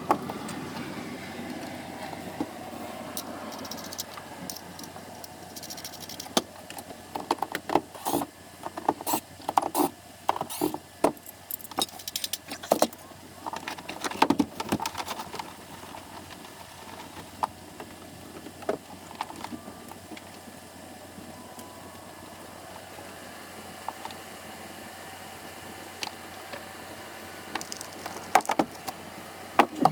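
Irregular metallic clicks, knocks and rattles of hand tools working loose the fittings of an aluminium boat's bow, coming in clusters mostly in the first half and again near the end.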